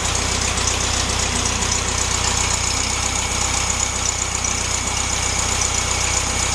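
Air-cooled flat-four engine of a 1967 VW Beetle idling steadily at about 1200 rpm. That is a fast idle, well above the 800 rpm it is meant to idle at, so the idle speed still needs adjusting.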